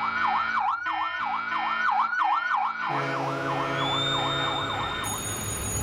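Emergency-vehicle siren on a fast yelp, its pitch sweeping up and down about three times a second and fading out near the end. A held music chord comes in under it partway through.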